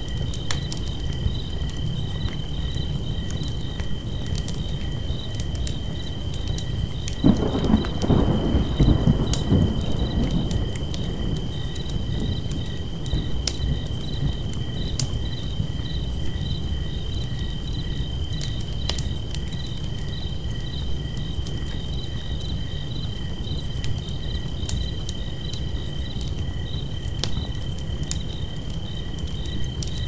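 Campfire crackling under a steady chorus of chirping crickets. About seven seconds in, a sudden low rumble rises and dies away over about three seconds.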